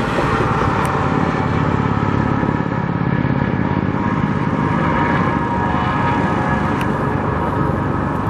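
Road traffic passing: a steady, loud mix of engine and tyre noise from vehicles going by.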